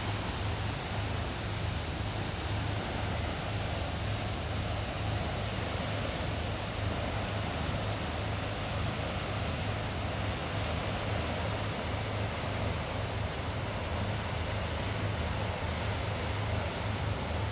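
Steady low drone of a distant river push-tow's diesel engines, under an even rush of open-air noise and wind.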